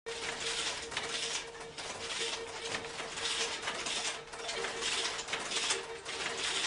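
Wooden treadle loom weaving in a steady rhythm: a swish about once a second as the work goes on, with a faint steady tone beneath.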